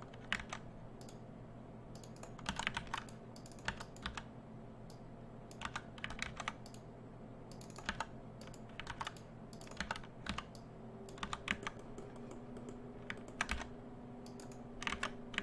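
Computer keyboard keys clicking in short, irregular clusters, the tapping of hotkeys and shortcuts during software work, over a low steady hum that gains a second, higher tone about eleven seconds in.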